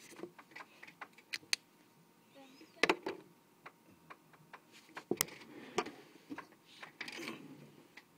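Irregular light clicks and taps of markers and pens being handled off the page, with two louder knocks about three and five seconds in.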